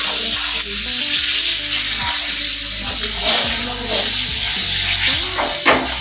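Onion and garlic paste sizzling in hot oil in a metal kadai, stirred with a spatula that scrapes the pan again and again.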